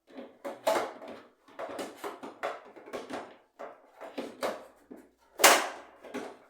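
A quick run of knocks and clatters from household objects being handled and set down, uneven and about a dozen in all, the loudest about five and a half seconds in.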